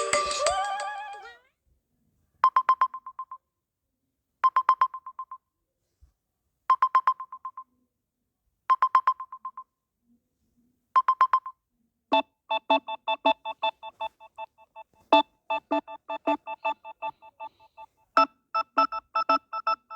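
Phone ringtones played one after another: a musical ringtone fades out in the first second, then an electronic phone ring sounds, a short trill of rapid beeps at one pitch repeated five times about every two seconds. About twelve seconds in a new ringtone begins, a fast beeping melody in several pitches.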